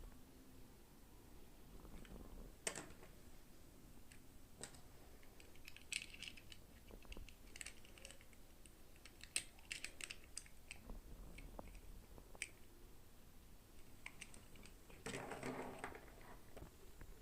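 Small plastic toy parts and packaging being handled: scattered light clicks and taps, with a longer rustle near the end.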